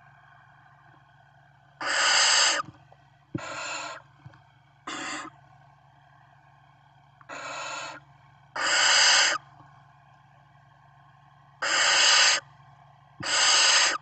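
Barn owl nestlings giving their harsh, snore-like hissing begging calls: seven rasping hisses of under a second each, some loud and some softer, over a low steady hum.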